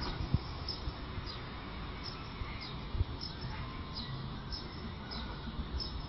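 A bird chirping repeatedly: short, high, falling chirps about once or twice a second, over low background noise.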